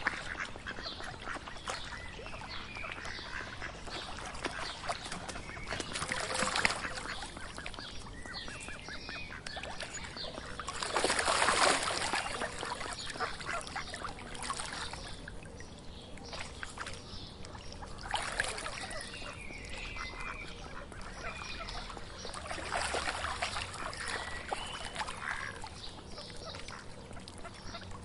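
Mallard ducks quacking, with a steady chatter between louder bouts of calling about 6, 11, 18 and 23 seconds in. The bout about 11 seconds in is the loudest.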